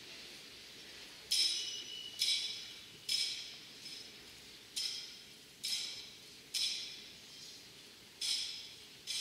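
Small metal bells struck in a steady rhythm, about one strike a second, beginning about a second in. Each strike rings out briefly and fades, and every few strikes one is softer.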